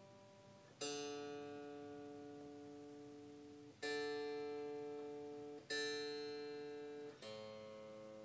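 Unplugged Epiphone Korina Explorer electric guitar being tuned: a single string is plucked four times, each note ringing and fading before the next.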